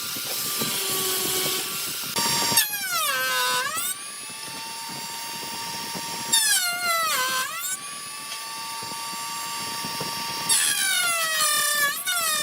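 An electric power tool working wood, with a hissing noise for the first two seconds. Then its motor runs at a steady pitch and three times drops sharply in pitch under load before speeding back up.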